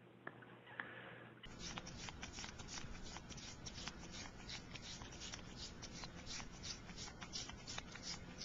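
House cat licking a lollipop: a steady run of quick licks, about four a second, beginning about a second and a half in.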